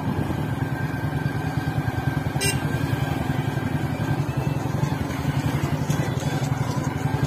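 A vehicle's engine running steadily on the move, with a low, even hum and road noise, and a short click about two and a half seconds in.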